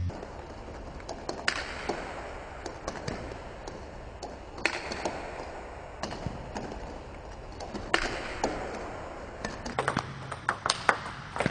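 Table tennis ball clicking off bat and table during backhand topspin strokes against backspin. A stronger hit comes about every three seconds, and a quick run of clicks follows near the end.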